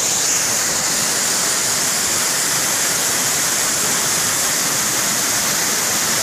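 Mountain stream rushing down a rocky cascade: a steady, unbroken rush of white water over boulders.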